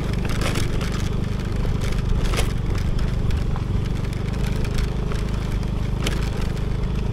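Small motor scooter engine running steadily while it is ridden over a rough dirt and gravel road, with scattered knocks and rattles from the stones and bumps.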